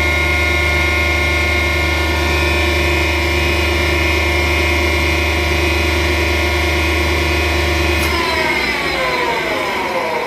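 Weinig Rondamat 980 CNC tool grinder running with a steady electric hum and whine. About eight seconds in, the low hum cuts off and the whine slides down in pitch as the machine's motors spin down.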